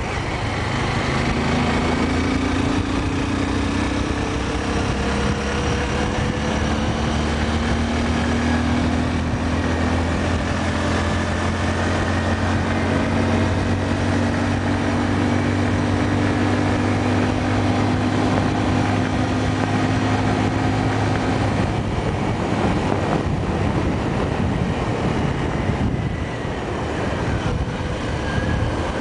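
Motorcycle engine running steadily on the move, under a constant rush of wind noise on the microphone. The engine note creeps slowly upward, then fades back into the wind noise about three-quarters of the way through.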